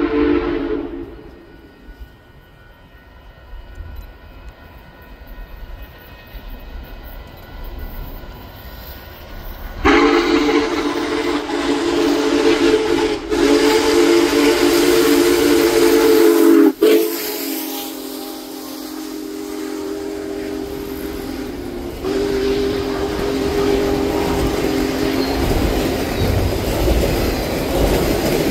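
Union Pacific 4014 Big Boy steam locomotive's chime whistle blowing long held blasts as the engine approaches, quieter for several seconds and then loud again from about ten seconds in. After the engine passes, its train of passenger cars rolls by with wheel clatter near the end.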